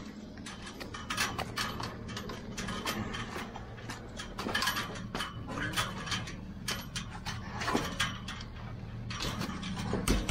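Irregular squelching and sucking steps through deep, sloppy wet mud and manure as cattle and a person walk through it, with a steady low hum underneath.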